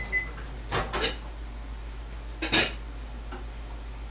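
A microwave oven stops with a short high beep as it finishes, then dishes and pots clink and knock, a pair of hits about a second in and another near the end.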